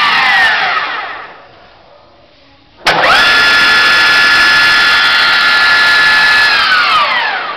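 MAS radial drilling machine's spindle drive running without load: a steady whine winding down as it is switched off, then a click about three seconds in as it is started again. The whine rises quickly to speed, holds steady, and winds down again near the end.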